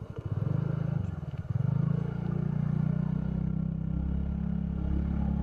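TVS Ntorq 125 scooter's single-cylinder engine labouring on a slippery mud track: it pulses unevenly at low revs, picks up about one and a half seconds in, then runs steadily under throttle.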